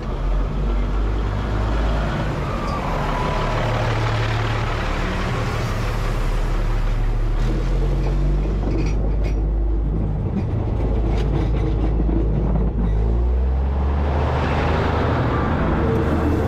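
Diesel railcar train rolling slowly directly overhead: steel wheels running on the rails over a steady low engine drone, with a few sharp clicks partway through.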